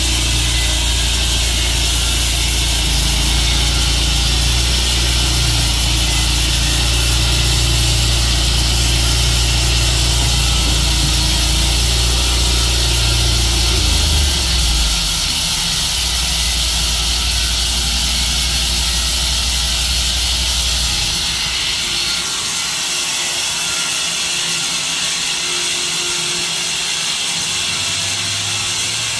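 Tru-Cut sawmill running and cutting through a maple log, a loud steady mechanical noise. A low drone shifts about halfway through and falls away about 21 seconds in, leaving a high hiss.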